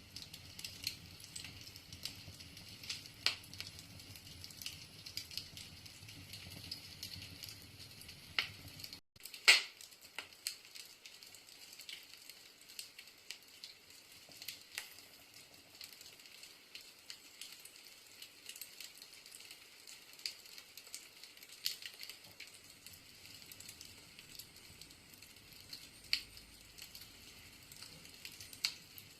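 Wood fire burning in a fireplace: a steady hiss with scattered crackles and sharp pops from the logs. About nine seconds in the sound breaks off for a moment, and the loudest pop comes just after.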